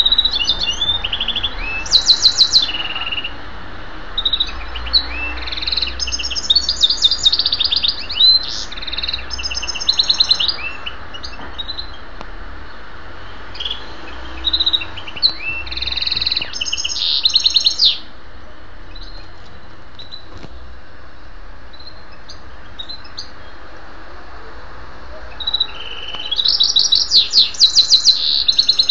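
A caged mixto, a hybrid finch bred from a canary and a wild finch, singing in phrases of fast, high trills and warbles. The song pauses for several seconds after the middle and then comes back in one last phrase near the end.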